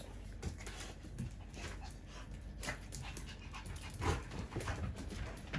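Two dogs tussling over a ball toy: panting and scuffling, with irregular short clicks and scrapes.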